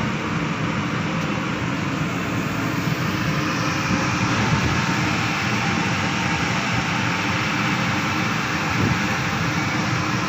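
Steady mechanical drone of a ship's engines and machinery: a low, even hum under a rushing noise, with no breaks.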